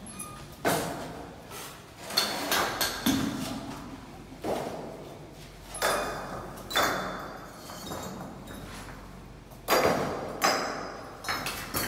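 Irregular knocks and clacks of bricklaying: clay bricks being set down and tapped into place, about ten strikes with a quiet gap near the middle. Some have a short metallic ring, and each echoes in a large bare concrete room.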